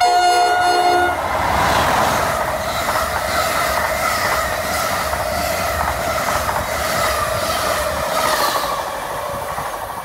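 NJ Transit passenger train sounding its horn in one short blast of about a second. It then passes at speed, its bilevel coaches' wheels clattering rhythmically over the rail joints under a steady whine, easing off slightly near the end.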